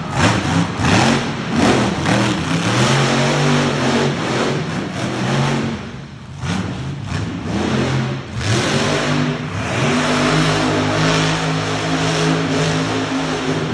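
Monster truck engine revving in repeated surges as the truck spins on the dirt. The engine eases off briefly about six seconds in, then is held high and steady near the end.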